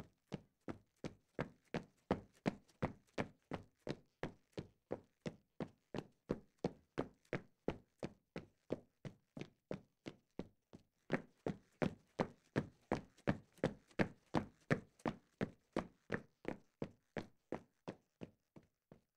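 Footsteps at a steady, quick pace, about three dull thuds a second, somewhat louder through the middle stretch.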